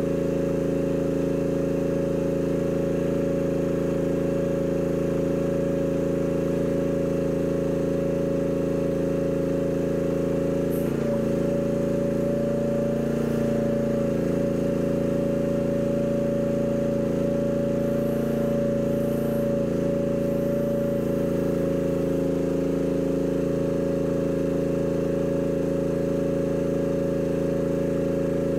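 Mini excavator engine running steadily. About eleven seconds in there is a click, and the engine note changes for about ten seconds before settling back to the same steady running.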